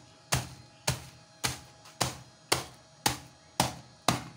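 Wooden rolling pin pounding a plastic bag of rusks on a marble countertop to crush them, eight steady blows about two a second.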